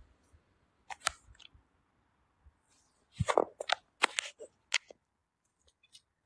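Phone handling noise: a few short clicks, then a cluster of crackles and knocks in the middle as the phone is moved about.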